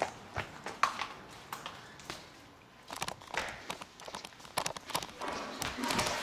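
Hurried footsteps running across a tiled floor: a quick, irregular string of taps and knocks.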